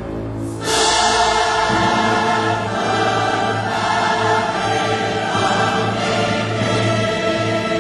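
Background music: a choir singing sustained chords, swelling about a second in.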